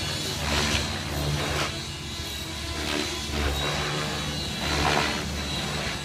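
Brushless electric T-Rex RC helicopter flying 3D manoeuvres: a steady thin motor and rotor whine, with the blades whooshing in swells every second or so as it pitches and turns.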